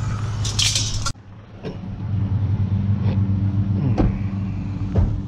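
Pickup truck engine running at low speed, a steady low hum, with a few light clicks. The sound drops out briefly about a second in, then returns.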